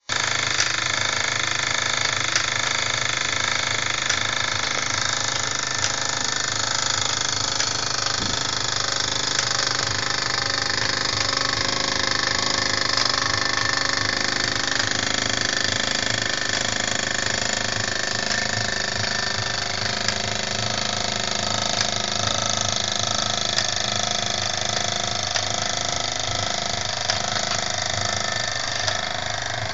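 Mamod live-steam model steam roller running on the spot and driving a Mamod toy workshop through its lineshaft: a steady mechanical whirring of the small steam engine, belts and pulleys, with light clicks scattered through it.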